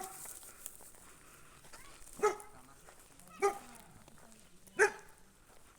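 A dog barking three times: single short barks, each a little over a second apart.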